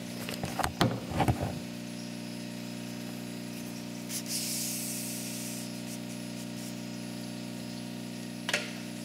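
Hands handling an engine oil dipstick and a shop rag: a cluster of rustles and clicks in the first second and a half, a short hiss of cloth wiping about four seconds in, and one click near the end, over a steady low hum.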